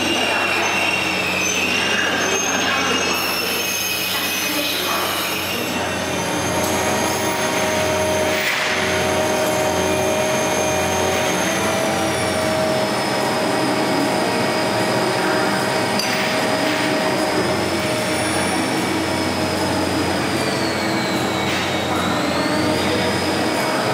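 Steady running of a Kirow railway crane and its work train: a constant low hum with several steady tones, and a high whine that slowly wavers up and down in pitch.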